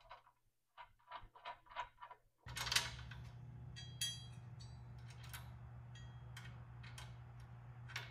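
Light metallic clicks and clinks of bolts, nuts and washers being handled and fitted by hand on a steel plate and seat swivel base. A few clinks ring briefly. A steady low hum sets in about two and a half seconds in.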